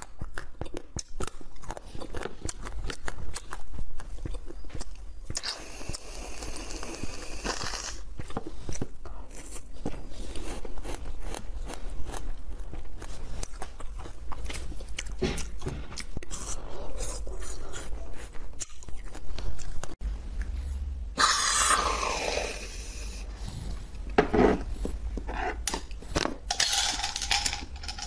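Close-miked chewing and biting of a firm passion fruit jelly studded with seeds, a dense run of small crunching and squelching clicks. Twice, about six and twenty-one seconds in, a longer hissing sound stands out.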